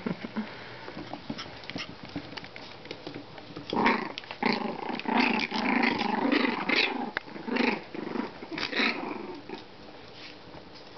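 33-day-old Shichon puppies growling at each other in play-fighting, a run of rough little growls from about four seconds in until about nine seconds.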